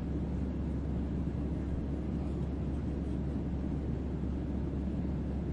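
Steady sea wind, a low, even rushing with no gusts or breaks standing out.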